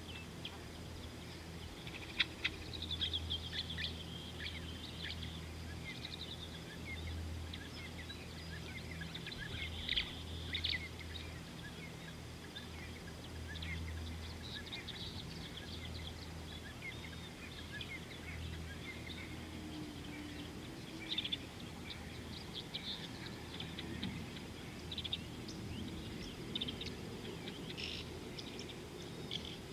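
Several birds chirping and calling, many short high notes and trills overlapping, over a low hum that comes and goes.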